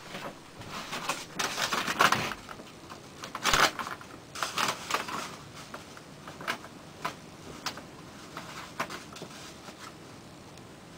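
Irregular handling noises: rustling and scraping with sharp clicks, busiest in the first five seconds and then thinning to scattered clicks.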